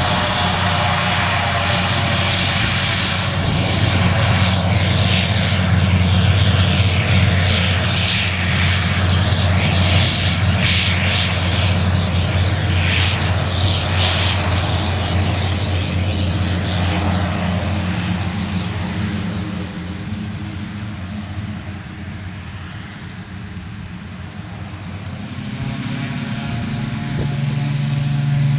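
Short SC7 Skyvan 3's twin Garrett TPE331 turboprops running as it taxis past, a steady propeller drone with a turbine whine and hiss on top. The sound fades as the aircraft moves away, then grows again near the end, with a change in pitch.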